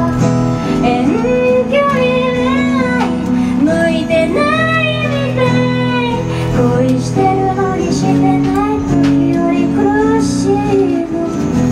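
A woman singing a melody into a microphone, accompanying herself on a strummed acoustic guitar.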